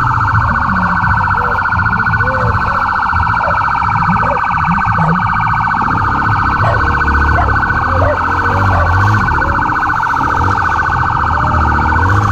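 Police siren sounding continuously with a fast warble, over the low running of a motorcycle engine that gets louder about halfway through.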